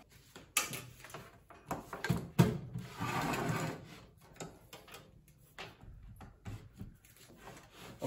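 Bench DC power supply being set down and moved into place on a wooden workbench: a few knocks and clicks, the loudest about two and a half seconds in, then about a second of rubbing and sliding, then lighter handling clicks.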